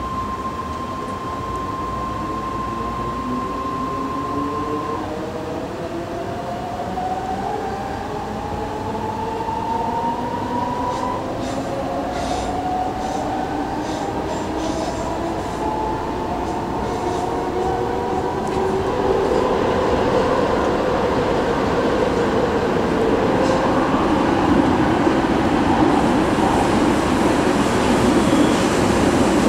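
Inside a BART rapid-transit car, the train's motors whine in several parallel tones that rise steadily in pitch as the train accelerates. A steady high tone stops about five seconds in. In the second half the rush of wheels on the track grows louder, with a few clicks from the rails.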